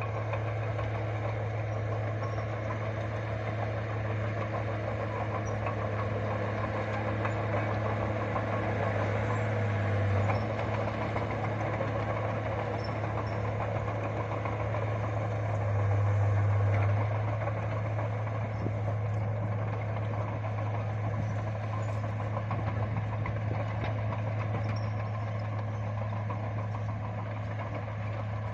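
Bulldozer's diesel engine running steadily with a deep hum, swelling briefly about ten seconds in and again for about a second around sixteen seconds in.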